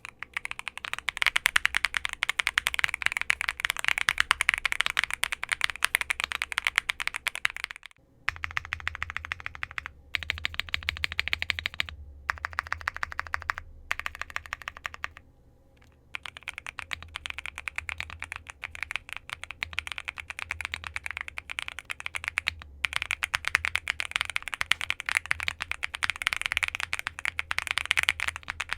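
Typing on a Monsgeek M1 V3 mechanical keyboard, an aluminum gasket-mounted 75% board with Akko Creamy Purple Pro switches. The keystrokes come in fast continuous runs, broken by a few short pauses.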